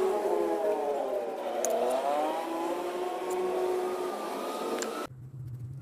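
A motor vehicle engine running nearby, its pitch dipping and then rising again as the engine slows and picks up. It cuts off suddenly near the end.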